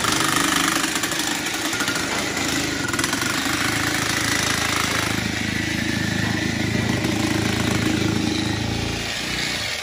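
Electric hammer driving a 6-foot earth rod down into the soil, running steadily and stopping shortly before the end.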